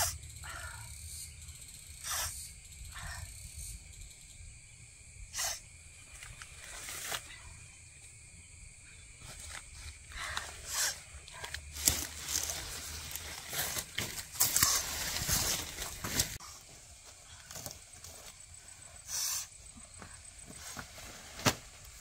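Outdoor background with a steady faint high drone, broken by scattered rustles and short sharp knocks, thickest near the middle.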